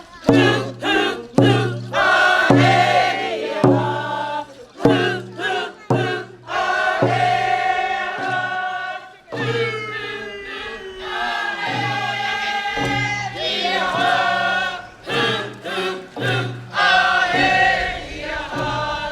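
A group of voices singing together, with a regular low beat under the song.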